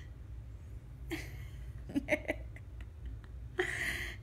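A baby's soft breathy sounds and a few very short squeaky coos about two seconds in, over a steady low rumble of phone handling.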